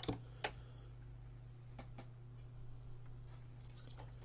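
A few faint, short clicks and taps from handling over a steady low hum, with long quiet stretches in between.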